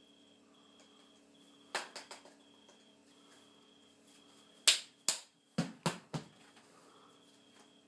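A TV remote being knocked and slapped about when the set won't turn on: three quick sharp knocks about two seconds in, then a louder run of five slaps and thumps within about a second and a half near the middle.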